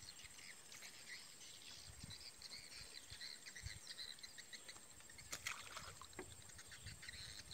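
Faint outdoor background of scattered small high chirps, with one sharp click about five and a half seconds in.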